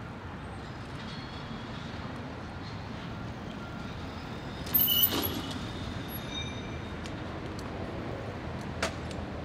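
City street traffic running steadily, with a brief loud high-pitched hiss about five seconds in and a sharp click near the end.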